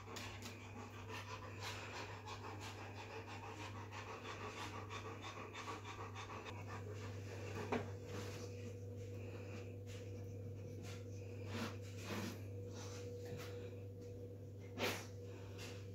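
Newfoundland dog panting in first-stage labour, the steady panting of a dam in labour before whelping. It thins out in the second half, with a few soft knocks as she moves about.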